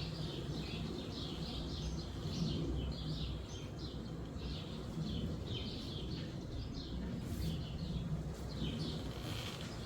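Birds chirping continuously in short, rapid notes over a steady low rumble of wind.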